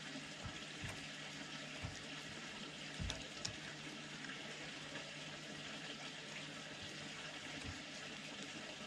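Red fox eating wet food from a metal tray close to the microphone: wet chewing and licking sounds with a few soft low knocks, the loudest about three seconds in, over a steady hiss.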